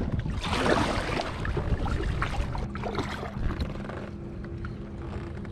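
Water splashing and rushing along the hull of a kayak under way, loudest about a second in, with a steady low hum joining about halfway through.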